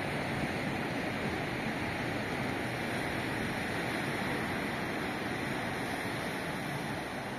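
Ocean surf washing steadily onto a sandy beach, a continuous hiss of small breaking waves.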